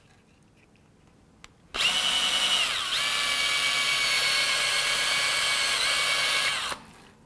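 Cordless drill spinning a 3/8-inch bit inside a rubber antenna grommet to ream its hole wider. The drill starts about two seconds in, runs with a steady whine that dips in speed once and picks back up, and winds down near the end.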